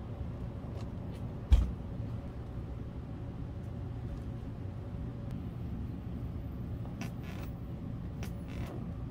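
A steady low background hum with one dull thump on the work table about a second and a half in, and faint rustling of paper and cloth as a gloved hand presses paper squares flat over gold leaf on the silk.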